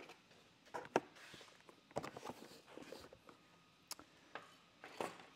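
Irregular light knocks and clicks of stainless steel tube bends and tools being handled and set in place on a workbench, a handful of separate strikes with the sharpest about a second in.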